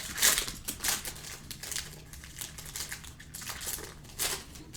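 Crinkling and rustling of trading-card packs and cards being handled, a string of short irregular rustles, the loudest about a quarter second in and just past four seconds.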